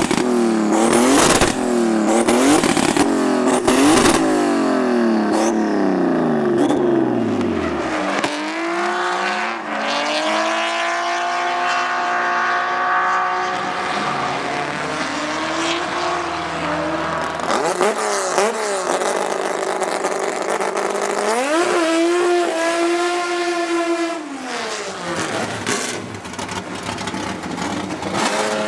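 Racing car engines at full throttle: a note that climbs and drops about once a second through quick gear changes, then falls away in one long sweep as the car goes past. Further cars follow, winding up more slowly, one holding a steady high note for a couple of seconds.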